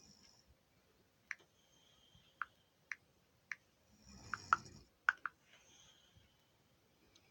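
A sleeping person's noisy breathing, with a series of short wet mouth clicks and smacks. A louder, rougher breath comes about four seconds in.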